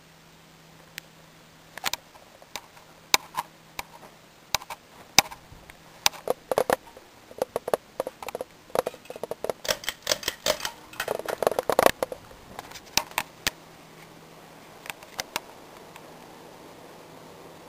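Irregular clicks and knocks, thickest in the middle, as the ceiling fan's brass light kit and glass shades are handled up close. Under them is the faint steady hum of the running fan motor, which is plainest before and after the clicks.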